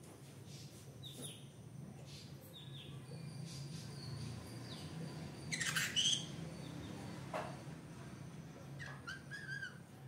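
Green-cheeked conure making a few short chirps, one loud sharp squawk about six seconds in, and a quick run of short wavering notes near the end.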